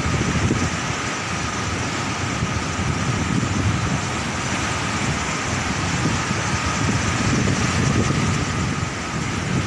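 Heavy surf: large waves breaking and washing against a stone seawall, a continuous rush of water with a low rumble underneath.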